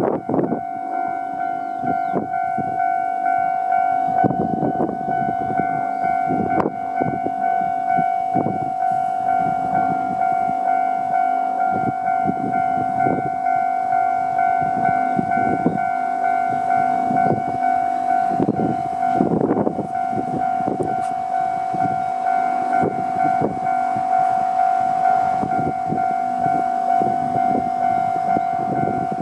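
Japanese railway level-crossing alarm, its electronic bell ringing on and on in a steady pulsing tone, warning that a train is approaching.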